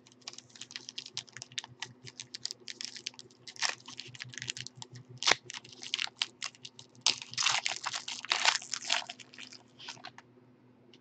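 Foil trading-card pack crinkling and crackling in the hands as it is torn open, with a run of dense, louder crinkling about seven to nine seconds in as the wrapper is pulled apart. A faint steady hum sits underneath.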